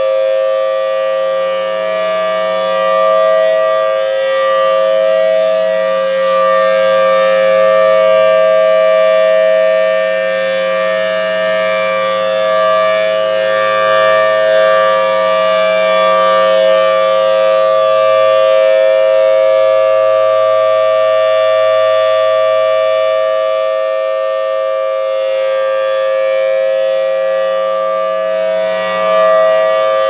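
Federal Signal Thunderbolt 1000T tornado siren sounding a steady alert tone as a chord of two held pitches. The sound swells and fades slowly as the horn rotates.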